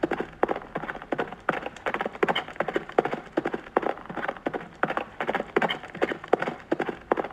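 Horse hoofbeats: a quick, steady clatter of several hoof strikes a second.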